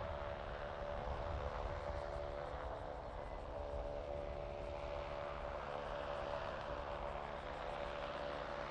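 Steady machine hum from a parked Boeing 767 and its ground equipment at the gate, with a cluster of steady mid-pitched tones over a low rumble.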